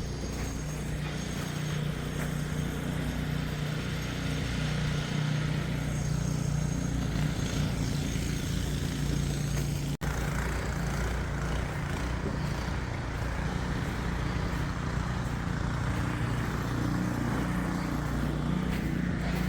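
An engine running steadily at an even pitch, with a brief drop-out about halfway through.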